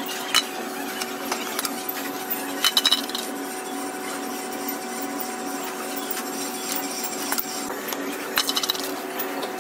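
Workshop machinery running with a steady hum, with sharp metal knocks: one just after the start, a quick run of four at about three seconds, and another quick run near the end.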